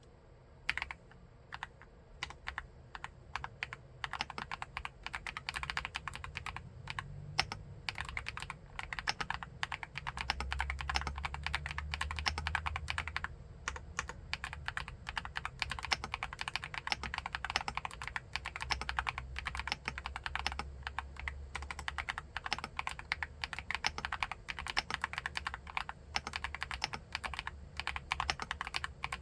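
Typing on an Akko SPR 75 mechanical keyboard fitted with MMD Princess tactile switches. A steady stream of key clacks starts sparsely about a second in, then turns fast and nearly continuous.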